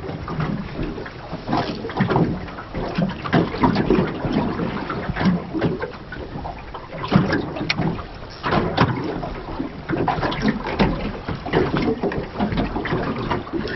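Choppy sea slapping against the hull of a small anchored boat, with irregular knocks and splashes.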